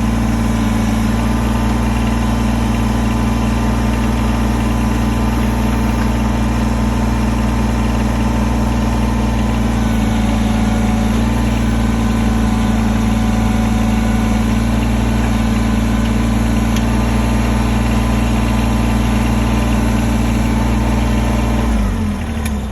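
Kubota BX compact tractor's three-cylinder diesel engine running steadily while it powers the backhoe, then shut off near the end, its note sinking and dying away.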